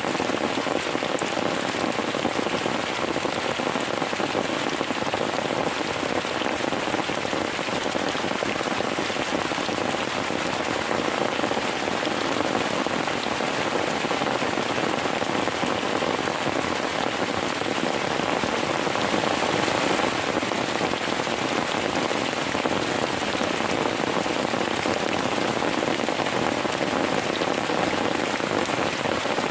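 Heavy rain falling steadily, a dense even downpour with no letup.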